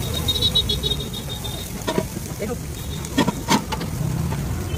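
Street-food griddle stall sounds: a steady low background hum with a brief high twittering in the first second or so, then a few sharp metal clinks of utensils, about two seconds in and twice more around three and a half seconds.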